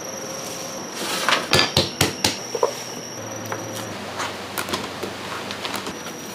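Bakery kitchen work sounds: a quick run of sharp knocks and clatters between about one and two and a half seconds in, then lighter scattered clicks, over a steady hum and a thin high whine of kitchen equipment.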